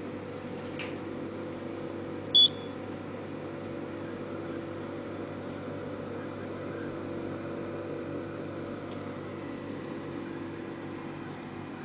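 A Tokheim fuel-pump payment terminal gives one short, high beep about two and a half seconds in, the kind it sounds when a menu choice is pressed, over a steady low machine hum.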